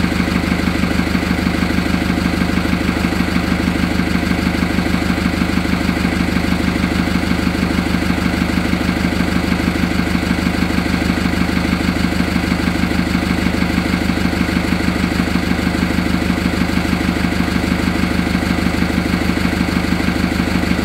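Fiat 70-66 DT tractor's four-cylinder diesel engine idling steadily after a winter cold start, a fast, even pulsing clatter.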